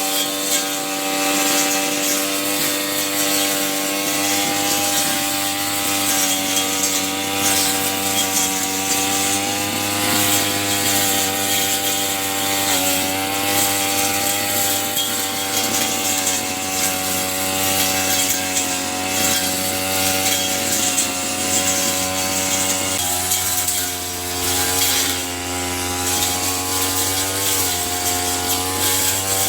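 Small two-stroke brush cutter engine running at steady throttle, with a hiss over it; the engine note dips slightly about a third and three quarters of the way through.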